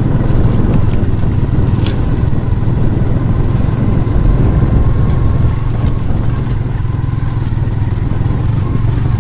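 Small motorcycle engine running steadily while riding a rough forest dirt trail, with many rattling clicks from the bike over the bumps.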